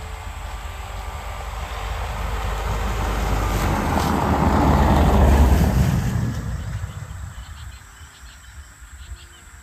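A vehicle passing by: a broad rushing engine-and-tyre noise that swells for about five seconds, peaks, then fades away over the next two or three.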